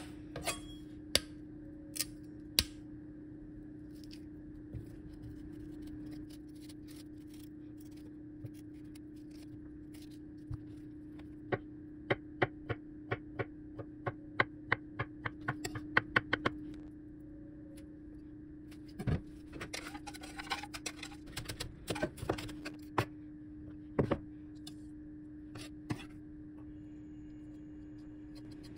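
Chef's knife slicing a peeled avocado on a wooden cutting board: sharp taps of the blade hitting the board, with a fast run of about four to five cuts a second in the middle and scattered taps before and after.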